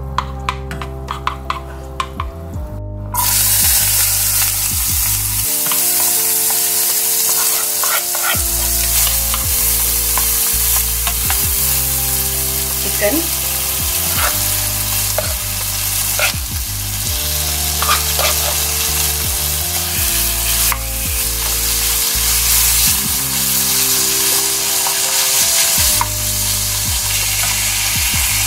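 Diced onion and chicken pieces frying in melted butter in a nonstick wok, sizzling steadily, with a wooden spoon stirring and scraping. The sizzle jumps up suddenly about three seconds in.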